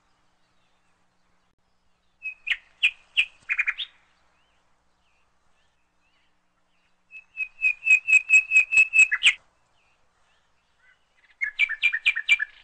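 A bird chirping in three bursts of quick, repeated high notes, with silence between them; the middle burst, a rapid run of about six chirps a second, is the longest and loudest.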